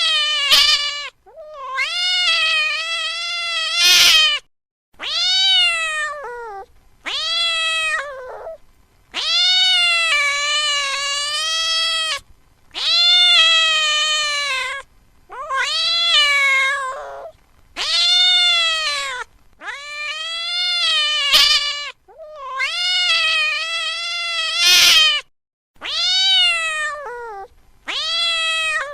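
Domestic cat meowing over and over: about a dozen drawn-out meows, each a second or more long, rising and then falling in pitch, with short gaps between them.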